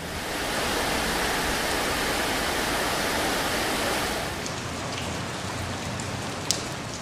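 Rain falling steadily, a little quieter from about four seconds in, with a few faint drip ticks near the end.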